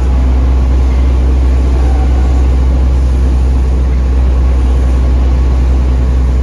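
Mercedes-Benz OH1830LE bus's OM926 inline-six turbo-diesel engine running steadily, heard from the rear seats inside the cabin as a loud, deep, even drone.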